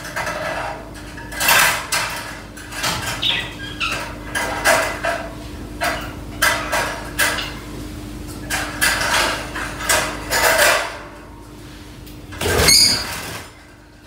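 White wire bird cage rattling and clinking in a run of short bursts as it is handled, with a louder, harsher burst of sound near the end.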